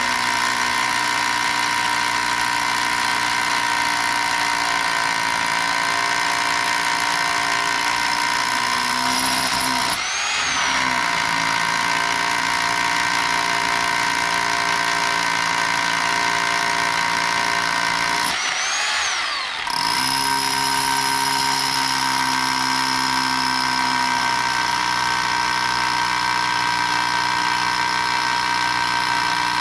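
Electric rotohammer drilling into a concrete slab, running steadily. Twice it eases off briefly and winds back up, about a third of the way in and again around two thirds.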